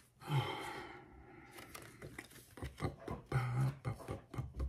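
Plastic packaging crinkling and rustling, with a run of small sharp clicks as surgical instruments are handled, and a short low hum a little past halfway.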